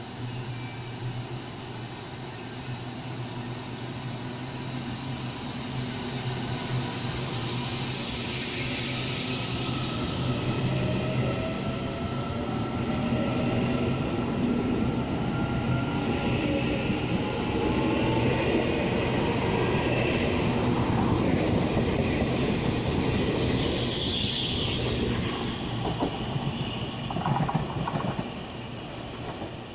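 Electric multiple-unit commuter train pulling away: its traction motors whine in several tones that rise in pitch as it accelerates, over a steady low hum and wheels rumbling on the rails, growing louder as the cars pass. A brief high wheel squeal comes toward the end.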